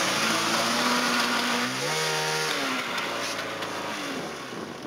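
Snowmobile engines running over snow with wind and track noise, one revving up briefly about two seconds in and dropping back. The engines ease off near the end as the sleds slow.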